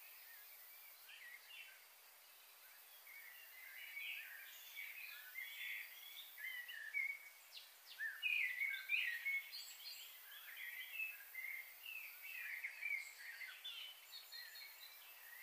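Small birds chirping and twittering in a busy, overlapping chorus that starts about three seconds in and is loudest near the middle, over faint background hiss.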